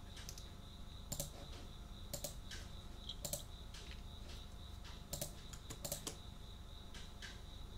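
Computer keyboard being typed on in slow, irregular keystrokes, a few per second, each a sharp clack. A steady high cricket trill runs behind the typing.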